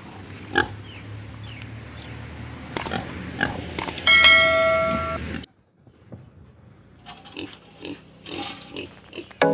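Domestic pig grunting in short, separate grunts, with a bright bell-like notification chime about four seconds in, the loudest sound, from a subscribe-button animation. The sound cuts off abruptly just after the chime, then quieter pig grunts return.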